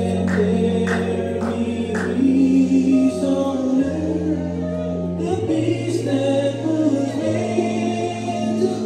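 A group of voices singing a gospel song over sustained accompaniment chords, the bass notes changing every second or two.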